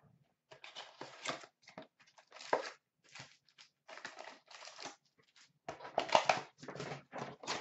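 A cardboard box of trading cards being torn open and emptied by hand: an irregular run of tearing and crinkling rustles, loudest about six seconds in.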